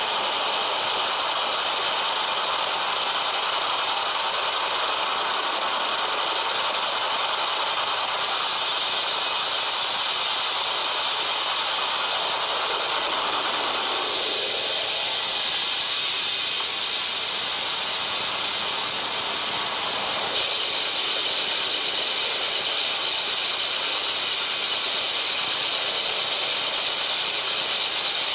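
Live harsh noise music from tabletop electronics: a loud, dense wall of hissing static, heaviest in the upper range. About halfway through its lower-middle part falls away, and the texture shifts again about two-thirds of the way in.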